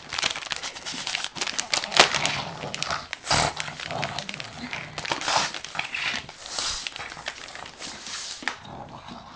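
A small dog ripping open a paper-wrapped present with its mouth and paws: paper tearing and crinkling in quick irregular bursts.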